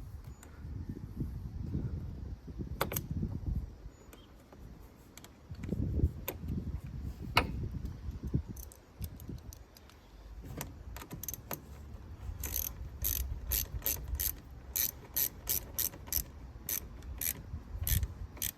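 Handling of the negative battery cable and terminal, then a ratchet wrench clicking at about three clicks a second over the last several seconds as the terminal clamp on the negative post is tightened.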